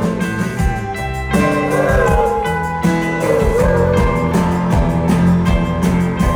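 Live rock band playing, with electric guitar and drums over the PA, heard from within the crowd.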